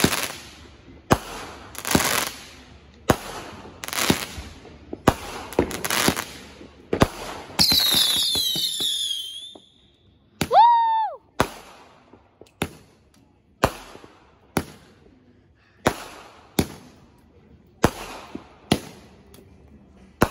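Aerial fireworks going off: a string of sharp, echoing bangs about once a second, then a cluster of shrill whistles falling in pitch about eight seconds in. A single short whistle rises and falls just after, and the bangs resume, more widely spaced.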